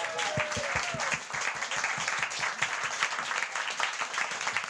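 Audience applauding, many hands clapping densely.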